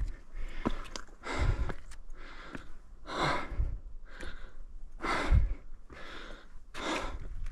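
Heavy breathing of a hiker climbing a steep rocky path, with a loud breath about every two seconds. Between the breaths come a few light steps on the rocks.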